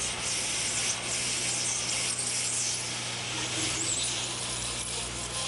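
Hot-air rework station blowing at full airflow, a steady even hiss of air, with a steady low hum underneath.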